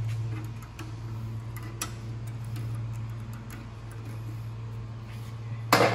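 A few light clicks of metal parts being handled, as the spring on a small-engine carburetor's linkage is worked free by hand, with one sharper click near the end, over a steady low hum.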